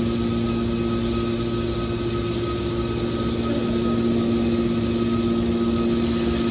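Hydraulic power unit of a metal scrap baler compactor running steadily, a constant machine hum with a few fixed tones over a noisy bed.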